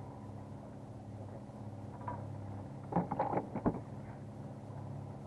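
A trolling fishing boat's motor running steadily at low speed, a low even hum. A short run of knocks and clatter comes about three seconds in.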